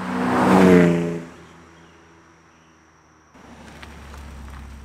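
BMW E36 M3 straight-six passing at speed on the exhaust, loud, its note dropping in pitch as it goes by. After a sudden cut about three and a half seconds in, a quieter low rumble of the car rolling past close by.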